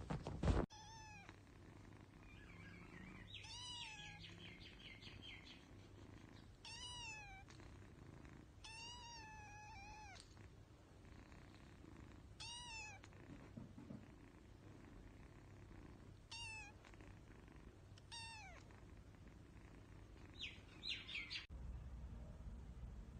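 A tabby kitten meowing again and again: short high-pitched mews, each rising then falling in pitch, a second or more apart. Right at the start there is a brief loud burst of noise.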